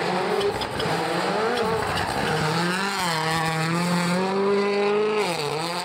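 Rally car engine running hard at high revs, its note wavering and then holding high, with a sharp dip and climb in pitch near the end.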